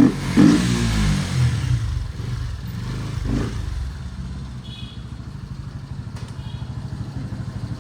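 Bajaj Pulsar NS160's single-cylinder engine: a short rev falling in pitch over the first two seconds, then settling to a steady, quieter idle. There is a brief knock about three seconds in.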